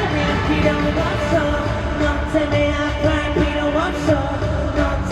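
A male pop singer singing live over a backing track through a concert sound system, holding long notes that slide between pitches.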